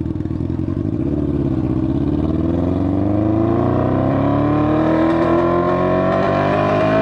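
Yamaha FZ6 motorcycle's inline-four engine accelerating through a gear, its pitch climbing steadily from about a second and a half in.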